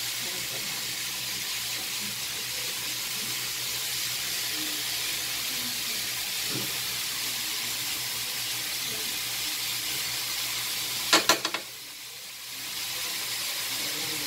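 Ground pork sizzling steadily as it fries in a wok with garlic and onion. About three-quarters of the way through comes a quick run of about four sharp knocks, after which the sizzle briefly drops away and then returns.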